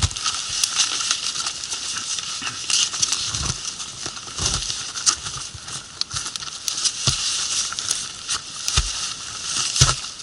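Fabric rustling and scraping as gaiters are pulled up and fastened over boots, with scattered clicks and several low thumps. A campfire crackles alongside.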